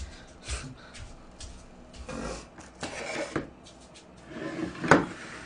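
Plastic-wrapped takeout food containers being handled and rubbed on a table: a series of short rustles and knocks, with one sharper knock about five seconds in.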